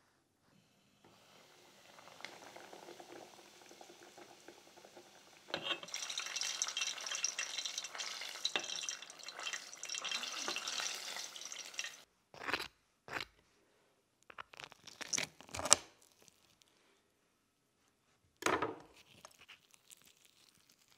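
Flour-coated masala chicken deep-frying in a steel pot of oil: a dense crackling sizzle that swells up about five seconds in and cuts off suddenly around twelve seconds. Then a few short crackling bursts, with the crisp fried chicken being torn apart by hand near the end.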